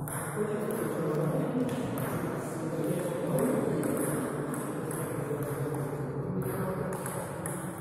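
Table tennis ball ticking off the bats and bouncing on the table, over a low murmur of voices.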